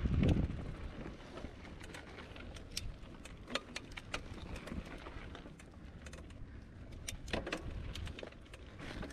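Mountain bike rolling over a rocky dirt singletrack: tyres crunching on gravel and stones, with scattered clicks and rattles from the bike over a low rumble.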